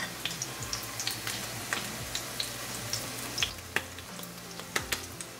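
Chicken kebab patties sizzling as they shallow-fry in olive oil in a frying pan: a steady hiss dotted with frequent sharp crackles and pops.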